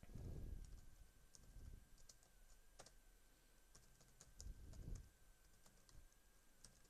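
Faint computer keyboard typing: a scattered run of light key clicks, with soft low thumps at the start and again about four and a half seconds in.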